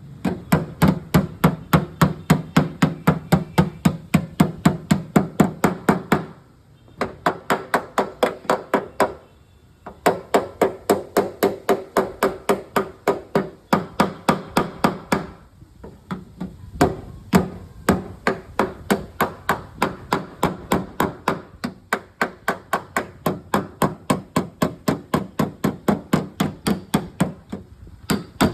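Rapid hammer blows on a car's sheet-metal body panel, about four or five a second, in long runs with a few short pauses: cold panel-beating to work out an accident dent.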